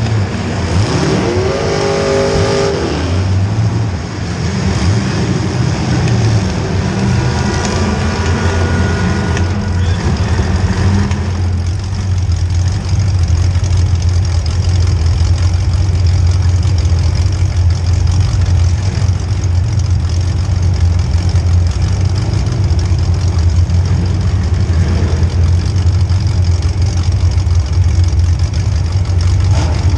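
Demolition derby car's small-block Chevy V8 revving up and down over the first few seconds, then running at a steady drone for the rest.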